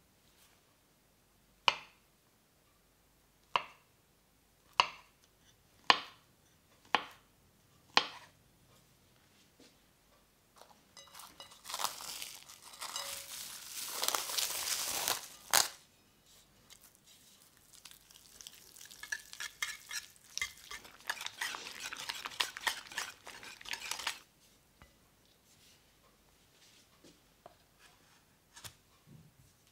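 A knife slicing a peeled banana on a wooden cutting board: six sharp knocks about a second apart. Then plastic cling film crinkles as it is pulled over a bowl of custard, ending in a sharp snap, and crinkles again for several seconds as it is pressed down.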